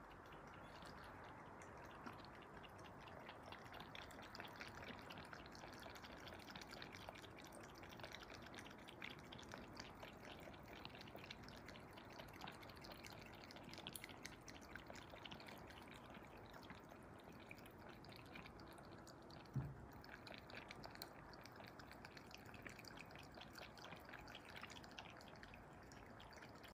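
A cat lapping water from the top of a glass fish vase: faint, quick wet clicks of the tongue at the water surface. One soft low thump about three-quarters of the way through.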